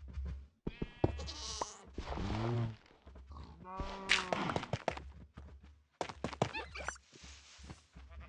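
Bleating livestock: about four wavering bleats, one after another, with scattered short knocks between them.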